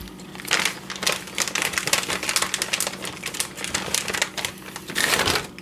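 Plastic bag of shredded cheddar crinkling as it is handled, in many quick rustles, with a louder burst about five seconds in.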